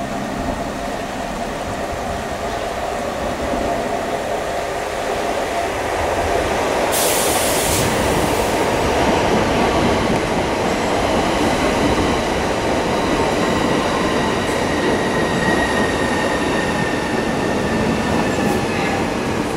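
Class 395 Javelin electric multiple unit running in alongside the platform and slowing. Its wheel-on-rail noise grows louder about six seconds in, with a brief hiss a second later. A high motor whine falls slowly in pitch near the end.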